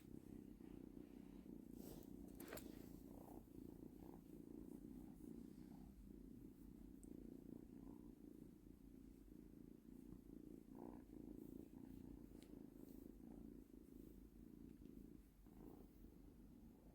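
Domestic cat purring steadily and faintly, with a few faint clicks a couple of seconds in.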